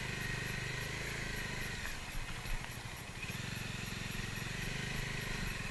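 Motorcycle engine running steadily at low revs, with a steady high-pitched hiss over it.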